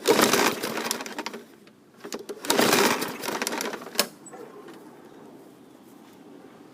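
Recoil starter rope of a Murray 21-inch push mower's Briggs & Stratton 500E engine being pulled twice, each pull a short whirring rush, with a sharp clack about four seconds in. The freshly primed engine does not catch; it later needed starting fluid, a sign that its carburetor needs cleaning.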